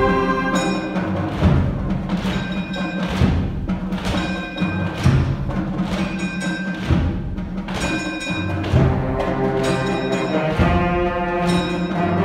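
School concert band playing: sustained wind chords from clarinets and saxophones, punctuated by percussion strikes about once a second.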